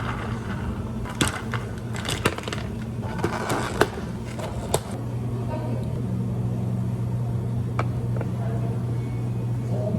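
Clinks and knocks of drink-making at a cafe counter, a handful of sharp ones in the first half and one more later, over a steady low hum of equipment.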